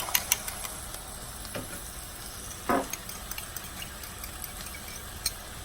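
An egg and vegetables sizzling in hot sesame oil in a frying pan, a steady frying hiss, with a few small clicks near the start and one short louder knock about halfway through.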